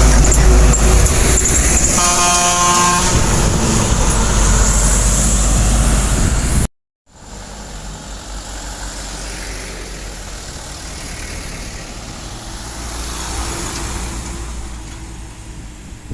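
A truck's engine running loud as it passes, with a multi-tone air horn sounding for about a second near the start. The sound cuts off abruptly partway through, then quieter road traffic noise follows.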